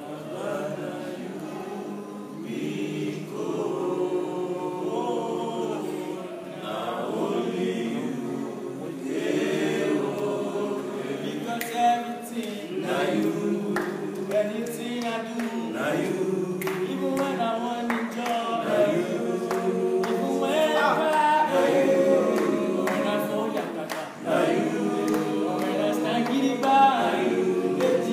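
A group of young men singing a freestyle melody together a cappella, several male voices at once in harmony.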